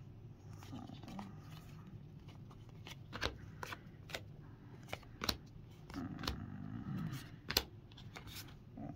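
2024 Topps Heritage baseball cards being handled and shuffled one behind another, the cardstock sliding and rustling, with a few sharp little clicks as card edges tap and snap.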